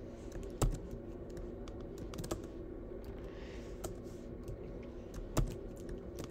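Keys tapped on a computer keyboard while a spreadsheet formula is typed in: scattered clicks, with two louder taps about half a second in and near the end, over a steady low hum.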